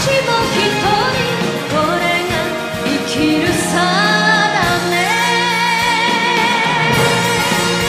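Japanese pop ballad music: a lead melody line over full accompaniment, settling into a long held note in the second half.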